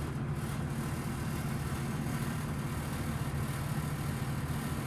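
A steady low mechanical hum, as from a motor or fan running.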